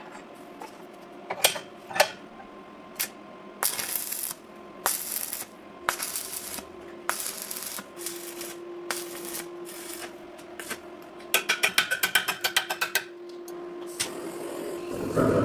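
Hard clinks and clicks of objects being handled, with several short hissing bursts and a rapid rattling run of about ten ticks a second near the end, over a faint steady hum.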